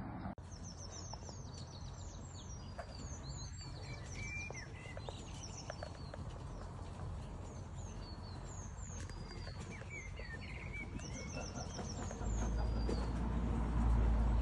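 Small songbirds singing, with runs of short, high, falling chirps repeated throughout. A low rumble rises near the end.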